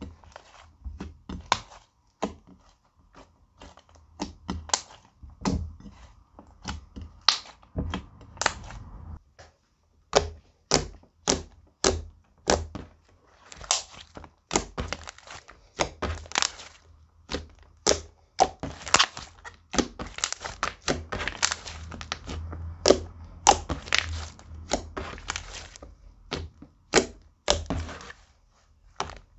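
Clear slime mixed with makeup highlighter and glitter being squished, poked and folded by hand. It gives a dense, irregular run of sticky clicks and pops, several a second.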